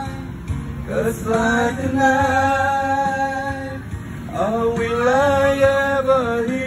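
Men singing into handheld microphones in two long phrases of held, wavering notes, over steady backing music.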